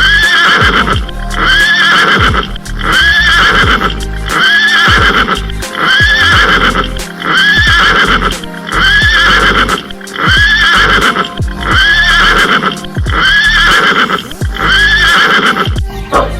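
Horse whinny repeated over and over, the same call about every one and a half seconds, laid over background music with a steady beat and percussive clip-clop-like knocks.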